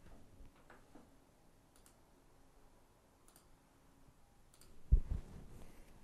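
A few faint clicks at the computer desk, spaced a second or more apart, then a low thump about five seconds in.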